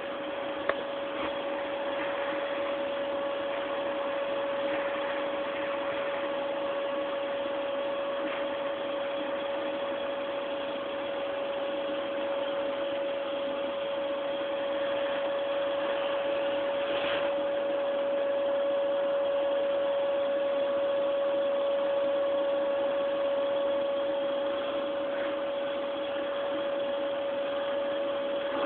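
Vacuum cleaner running steadily, a constant hum-like tone over an even rushing noise, with a few faint clicks.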